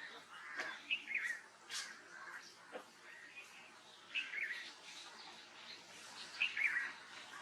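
Small songbirds chirping and twittering in short clusters of quick calls, about a second in, around four seconds in, and again near six and a half seconds.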